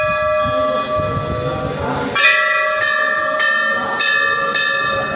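Hindu temple bell rung repeatedly, each stroke ringing on. A loud strike about two seconds in is followed by a run of strokes roughly every half second.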